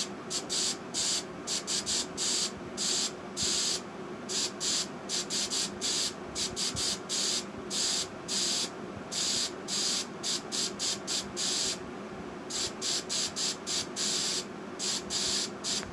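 Aerosol hairspray can sprayed in a run of short and longer hissing bursts, tapped out in the rhythm of a song's melody. A faint steady background hum runs underneath.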